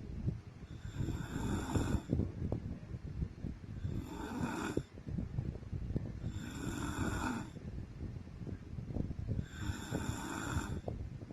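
A woman snoring in her sleep: a low rattling snore that swells into a louder, hissing breath about every three seconds, four times.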